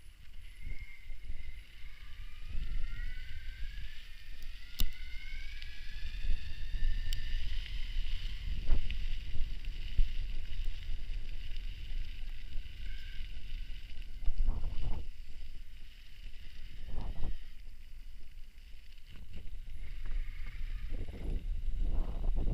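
Electric mountain bike's motor whining while riding, the whine rising steadily in pitch for several seconds as it speeds up and then holding steady, over heavy wind buffeting on the microphone and a few sharp clicks.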